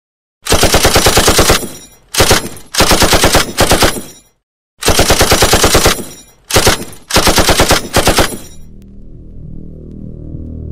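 Several bursts of rapid automatic machine-gun fire with short gaps between them. A low electronic synth drone then swells in as the track begins.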